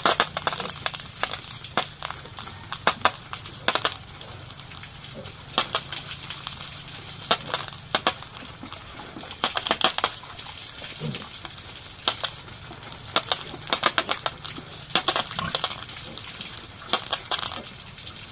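Pigs chewing and crunching feed: irregular quick clusters of crunching clicks, with a short low grunt about eleven seconds in.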